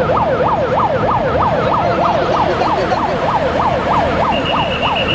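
Electronic warning siren wailing rapidly up and down, about three sweeps a second, over a low rumble; a steady high beep joins near the end.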